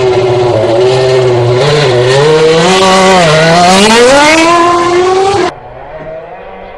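BMW Sauber Formula One car's V8 engine revving loudly as the car pulls away, its pitch rising and dipping. About five and a half seconds in the sound drops abruptly to a much fainter engine note rising in pitch.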